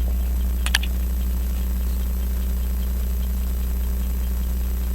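Hamilton 940 and 941 18-size pocket watch movements ticking faintly and evenly at 5 beats a second, under a steady, louder low electrical hum. One sharper click comes about three-quarters of a second in.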